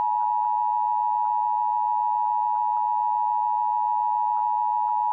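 Emergency Alert System attention signal: a loud, steady alert tone near 1 kHz, held without a break, announcing the broadcast alert message.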